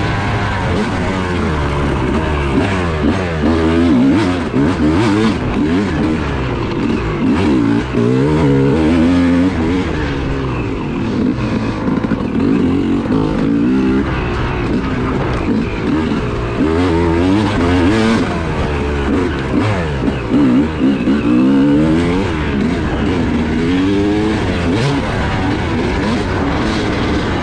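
Yamaha YZ250 two-stroke dirt bike engine heard from on the bike as it is ridden hard, the pitch rising and falling every second or two as the throttle is opened and closed.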